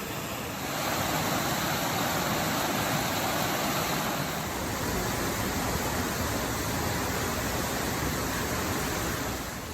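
A waterfall's falling water making a steady, even rush, a little louder from about half a second in.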